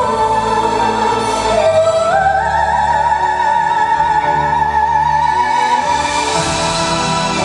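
Soprano singing a wordless operatic melody over an orchestra. About two seconds in she steps up to a long high note with vibrato and holds it for several seconds.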